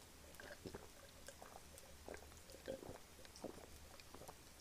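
Faint gulps and small mouth clicks of a person drinking soda from a glass, a few soft sounds scattered over near silence.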